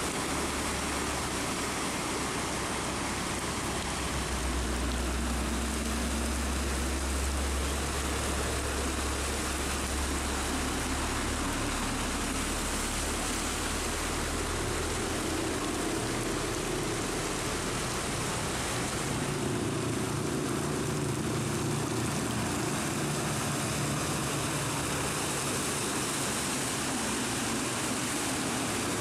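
Heavy rain hissing steadily, with diesel trucks' engines rumbling as they drive through floodwater on the road. One deep engine hum swells from about four seconds in to about eleven, and another engine note holds through most of the second half.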